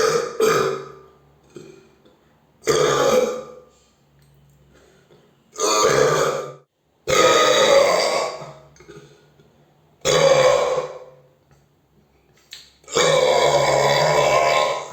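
A person burping loudly again and again, about six burps with short pauses between them. Each lasts from half a second to nearly two seconds, and the last one, near the end, is the longest.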